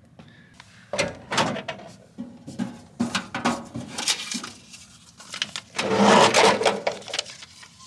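Vending machine working through a purchase: a run of irregular clicks and knocks, then a louder stretch of clattering about six seconds in as the item comes out.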